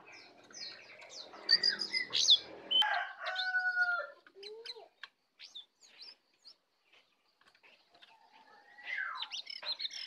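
Songbirds chirping and giving whistled calls in quick bursts, busiest in the first four seconds and again near the end, with sparse chirps in between. A lower chicken-like call sits under the first few seconds.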